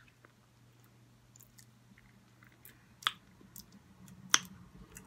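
Close-up eating mouth sounds: quiet chewing and a few sharp wet smacks as sauce is licked and sucked off the fingers, the loudest a little past three and four seconds in. A faint steady low hum underneath.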